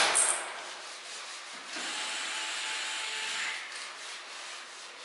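A sharp metallic clink right at the start, then a few seconds of rubbing and scraping. This is hardware being handled at the screw terminals of a bank of large electrolytic capacitors with a cordless driver.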